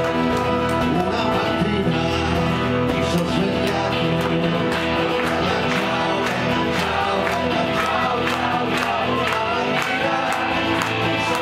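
Live acoustic music: acoustic guitars strummed in a steady rhythm while several voices sing together.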